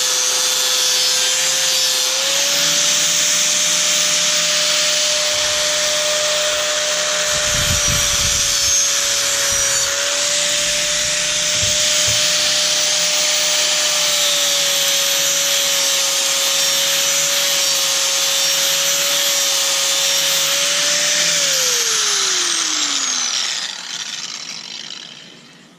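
Angle grinder grinding the cutting edge of a steel lawn mower blade: a steady high motor whine under a harsh grinding rush. Near the end the grinder is switched off, and its whine falls in pitch as the disc spins down.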